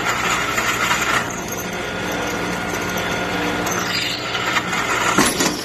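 Drill press running with a steady motor hum while a drill bit cuts into water-cooled stainless steel. A louder grating cutting noise comes near the start and again about four seconds in.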